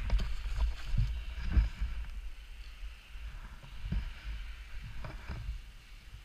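Dirt bike going down in sand with its engine silent: scattered thuds and knocks as it slides and falls over, the loudest about a second and a half in, over a low wind rumble on the helmet camera. The sound fades toward the end.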